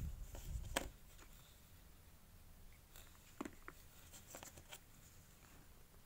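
Faint handling sounds: a low bump in the first second, then a few light clicks and taps as a fine paintbrush works paint onto a hand-held clay bird figurine.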